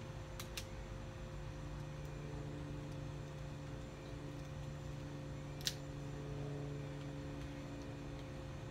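Rubber bands being stretched and snapped onto a watermelon: two light clicks about half a second in, then one sharp snap a little before six seconds in. A steady low hum runs underneath.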